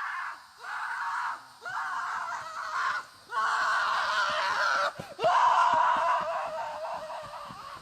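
Repeated loud screaming: about five or six long screams in a row with short breaks between them, the last one drawn out and fading.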